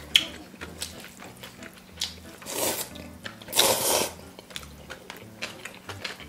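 Noodles being slurped from a bowl: two long slurps about two and a half and three and a half seconds in, the second the louder, with light clicks of chopsticks against glass bowls in between.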